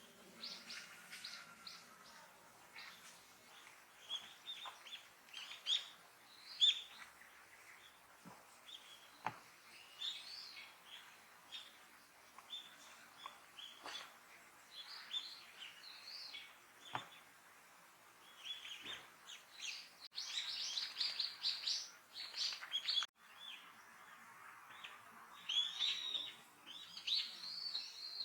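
Small songbirds calling: many short, high chirps and tweets at irregular intervals, coming thickest in a quick chatter about two-thirds of the way through and again near the end.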